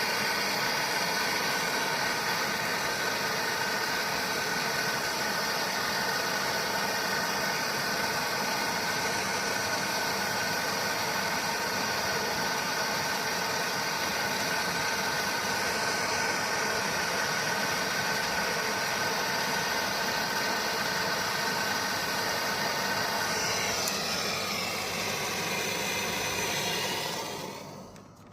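Air-conditioner unit running with a steady hum and whine over a hiss, then winding down near the end, its tones falling in pitch as it fades out.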